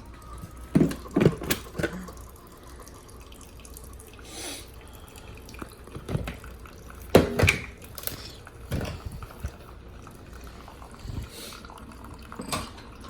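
Keurig single-serve coffee maker brewing a 12-ounce cup, coffee dripping and trickling into the mug over a low hum. A few sharp knocks and clunks stand out, loudest about a second in and around seven seconds in.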